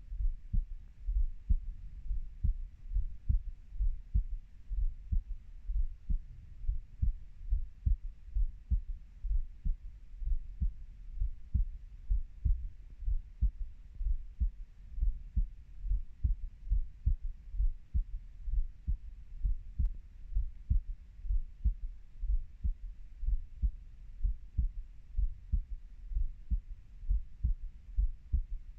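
A human heartbeat: regular low thumps repeating steadily at a resting pace.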